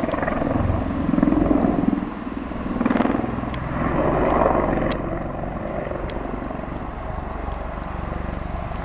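AH-64 Apache attack helicopter flying past, its rotor and engine noise a dense rushing drone that swells and eases several times in the first few seconds, then holds steadier.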